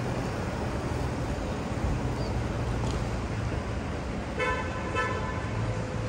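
A vehicle horn toots briefly about four and a half seconds in, over a steady low rumble of road traffic and idling vehicles.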